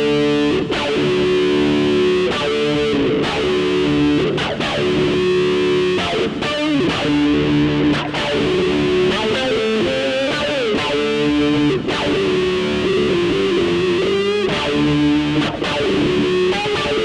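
Instrumental breakbeat music with held, bending melodic notes over a steady beat.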